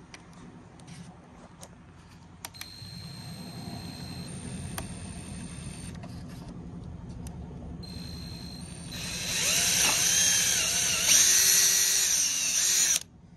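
Cordless drill boring rivet holes through a C7 Corvette's plastic front bumper cover. It is quieter at first, then runs loudly for about the last four seconds, its pitch rising and falling with the trigger, and stops suddenly near the end.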